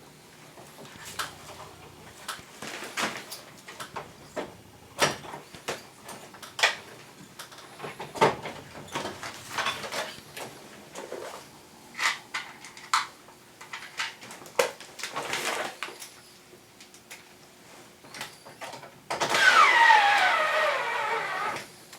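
Clicks and knocks of plastic air-conditioner parts being handled and unclipped during disassembly. Near the end a cordless power screwdriver runs for about two seconds, its pitch falling as it slows.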